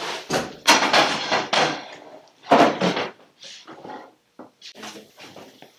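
A run of clattering knocks and bumps of objects being handled, loudest in the first three seconds, then lighter scattered taps.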